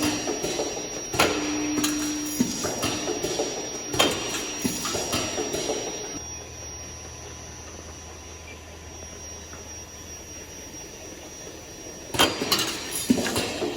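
HS-440SL four-head automatic weighing machine running: sharp mechanical clacks every few seconds with a short buzz after one of them, and a quieter stretch in the middle where only a low hum remains.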